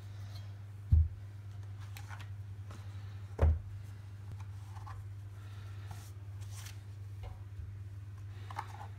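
Handling noises: two dull thumps, about a second in and again about three and a half seconds in, with scattered light clicks and rustles, over a steady low hum.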